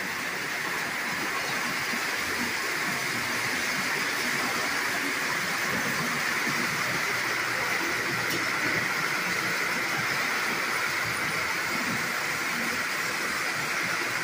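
Several Lionel O-gauge model trains running on three-rail track: a steady whir of electric motors and wheels on the rails.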